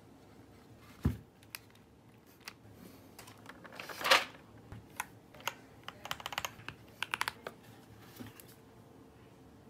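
Hard plastic clicks and clacks of mechanical keyboard parts being handled during assembly. There is a low thump about a second in, a short loud rattle just after four seconds, and a quick run of small clicks from about six to seven and a half seconds.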